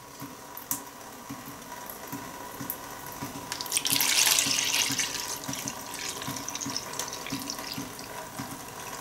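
Milk being poured in a steady stream from a stainless steel saucepan into a plastic bowl. The pouring is loudest about four seconds in.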